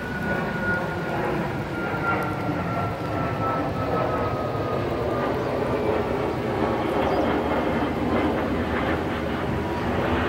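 Twin-engine narrowbody jet airliner passing overhead: a steady jet engine rumble with a high fan whine that slowly falls in pitch as it goes by.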